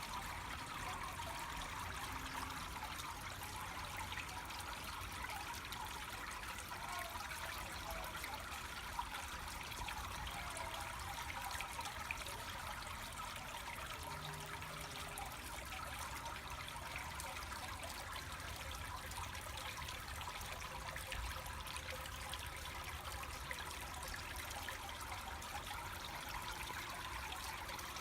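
Water trickling and splashing steadily over a green granite boulder fountain.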